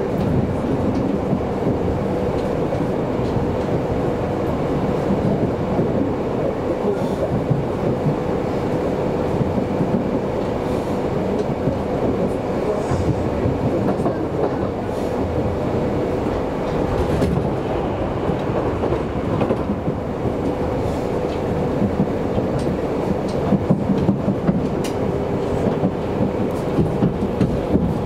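Electric commuter train running on the Kintetsu Minami-Osaka Line, heard from inside the car: a continuous rumble with a steady whine, and wheels clicking over rail joints, more sharply near the end.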